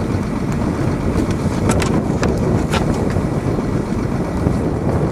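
Snowcat engine running with a steady low rumble, with a few faint clicks about two seconds in.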